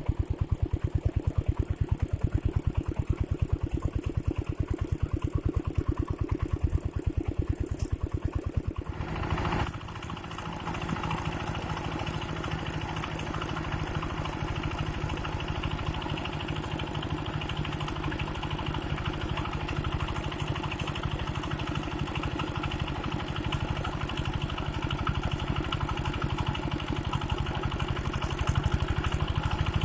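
Old large water-pump engine running with a fast, even thudding beat; about nine seconds in the sound changes to a steadier, denser running noise with more hiss.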